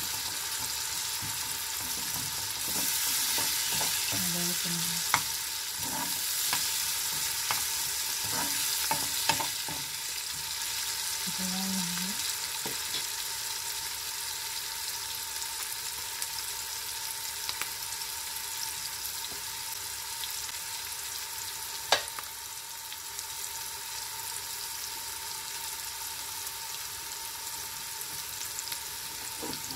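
Chopped onions, green chillies and curry leaves sizzling steadily in hot oil in a frying pan. A spoon scrapes and clicks against the pan several times in the first ten seconds, and there is one sharp knock about 22 seconds in.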